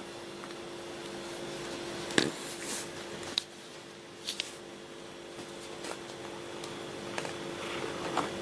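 Domestic cat purring steadily, close up. A few short sharp clicks cut in over the purr, the loudest about two seconds in.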